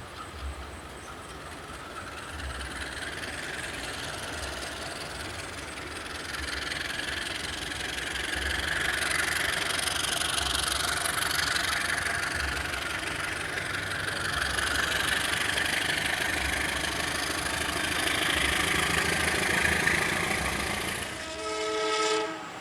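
Train running on the rails, a steady rush that grows louder about six seconds in. Near the end comes a short locomotive horn blast.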